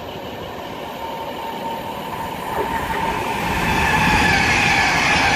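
Class 390 Pendolino electric train approaching at speed on the main line. Its rail and wheel noise builds steadily louder from about halfway in, with a high whine that slides slowly down in pitch.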